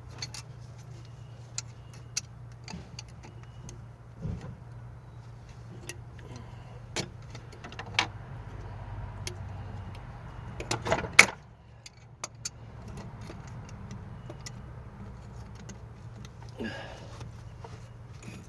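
Hand tools clicking and clinking on metal while working at the water pump bolts, with a cluster of louder knocks about eleven seconds in, over a steady low hum.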